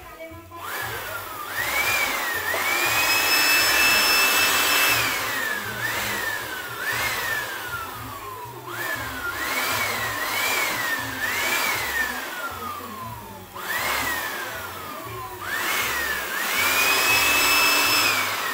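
Handheld electric air blower pulsed on and off about a dozen times, blowing sawdust. Each time its motor whine rises quickly to a high pitch and then slides slowly down as it coasts, under a rush of air. Twice it is held at full speed for a couple of seconds, about three seconds in and again near the end.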